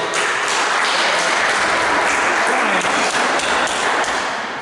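Small crowd of spectators applauding, dense hand-clapping that dies away near the end.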